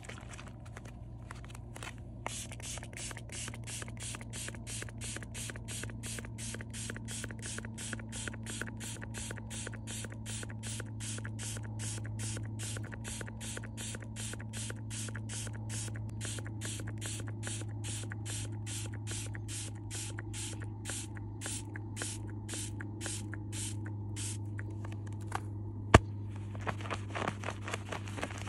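Gloveglu grip spray pumped onto a goalkeeper glove's latex palm in quick short sprays, about two a second and some fifty in a row, over a steady low hum. Near the end there is a sharp click, then a short rubbing sound.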